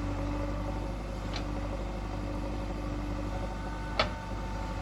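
Diesel engine of a working backhoe loader or tractor running steadily, with a faint click about a second in and a single sharp clank about four seconds in.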